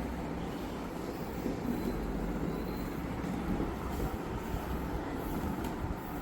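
Steady low rumbling background noise with faint, irregular handling sounds and no distinct knocks.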